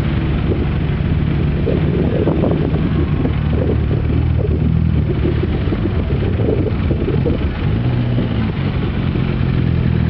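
4x4 SUV engine running steadily, its pitch shifting slightly a few times.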